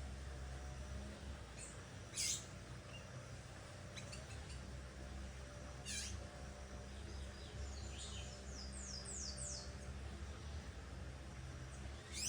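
Great kiskadee calling: short, sharp high calls about 2, 6 and 12 seconds in, and a quick run of about five falling high notes between 8 and 10 seconds, over a steady low hum.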